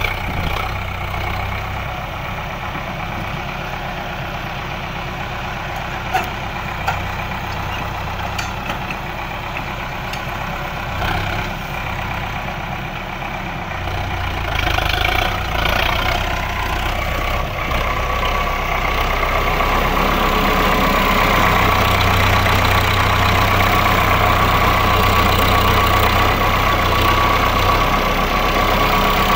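A Preet farm tractor's diesel engine runs steadily while working with a reversible mouldboard plough. It gets louder in the second half, when a steady whine joins the engine note.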